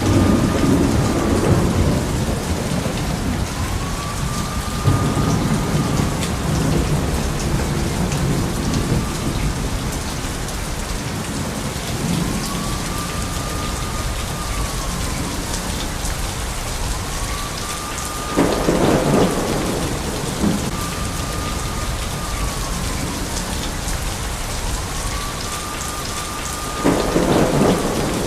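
Heavy, steady rainfall with rolling thunder rumbling low underneath. Two louder thunder bursts come about 18 seconds and 27 seconds in.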